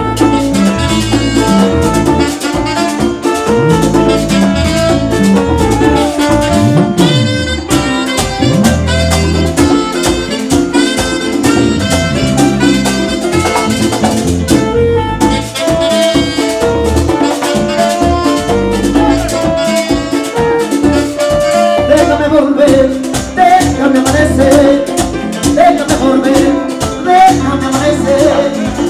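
Live Latin dance band playing an instrumental break: a saxophone lead over electric guitar, güira scraping, drums and bass.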